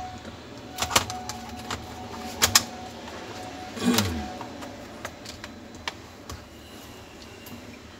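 Scattered clicks and knocks of a plastic laptop casing being handled. There are two sharp clicks about two and a half seconds in and a duller knock around four seconds.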